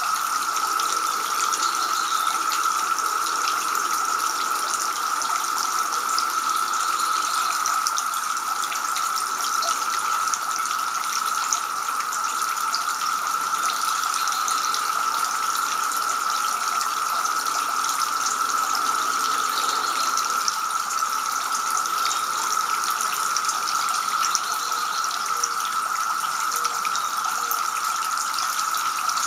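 Two-tier garden fountain, water splashing steadily from the upper bowl into the lower basin.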